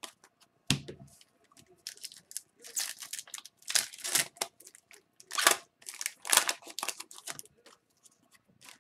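Foil wrapper of a hockey card pack crinkling and tearing as it is ripped open, in a run of sharp rustles. A single dull thump comes about a second in.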